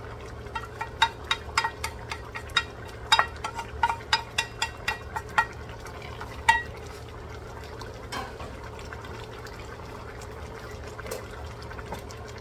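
A metal spoon clinking against a pot while stirring simmering chicken adobo, a quick run of sharp ringing clinks that stops about halfway through. A steady low hum runs underneath.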